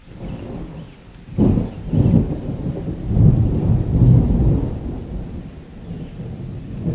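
Wind buffeting the microphone: a low, gusty rumble that comes in surges, strongest from about one and a half to four and a half seconds in, then easing.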